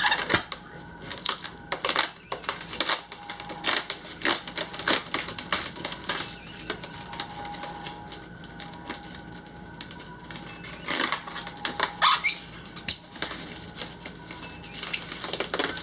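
Styrofoam packing being pulled out and broken apart while unpacking a boxed chess set, with a run of irregular crackles, squeaks and scrapes.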